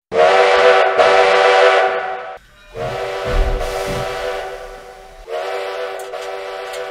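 Steam locomotive whistle blowing three blasts. Each blast is a chord of several steady tones. The first is the longest and loudest, the second fades away over a low rumble, and the third is shorter.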